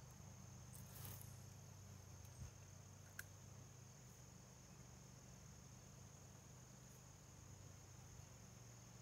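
Faint, steady high trill of crickets over a low hum, with a couple of faint clicks about one and three seconds in.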